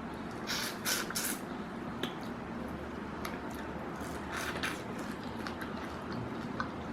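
Wet chewing and sucking on a sauce-covered prawn head, with short squishy bursts about half a second to a second in and again a little past four seconds.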